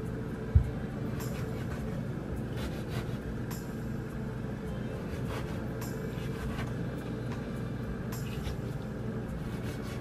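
Kitchen knife slicing a tomato on a bamboo cutting board, the blade tapping the board about every two seconds over a steady low hum. One sharp thump about half a second in.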